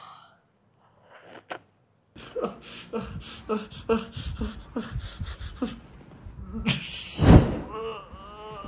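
A person's short grunts and groans, several a second, each falling in pitch, from someone lying face down for a massage. About seven seconds in there is a loud burst of noise.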